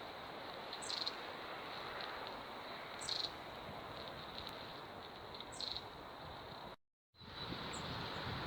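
A small bird calling three times, each a short high note falling in pitch, about two to three seconds apart, over a steady outdoor hiss of wind. The sound drops out completely for a moment about seven seconds in.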